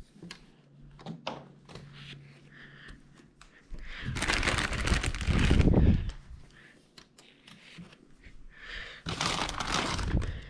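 Close rustling and handling noise right at the microphone, in two longer bursts about four and nine seconds in, with light clicks and scrapes between.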